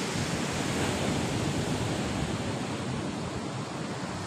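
Sea surf washing onto the beach in a steady rush, swelling slightly about a second in, with wind buffeting the microphone.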